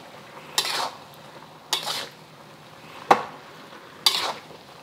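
A utensil stirring ground beef, tomatoes and onions in sauce in a hot pan: four scraping strokes about a second apart, over a faint sizzle.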